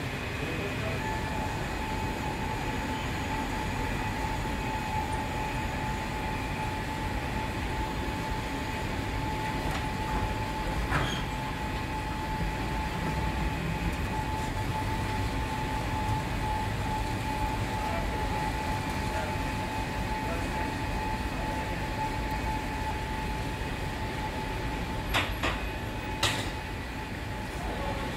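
Bread factory machinery running steadily: a constant low rumble with a thin steady whine, and a few sharp metallic knocks near the end.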